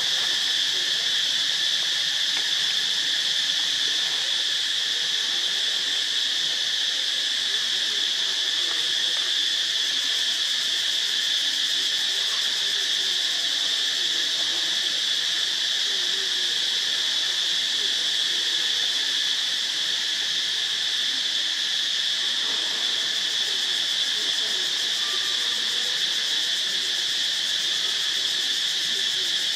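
Steady chorus of insects: a continuous high-pitched drone that holds the same level and pitch throughout.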